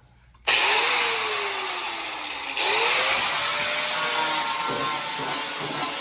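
Angle grinder with a 60-grit disc starting up about half a second in and grinding a tar-like coating off the sheet-metal trunk floor. The motor's pitch sags under load, then climbs again as the grinding gets louder about two and a half seconds in.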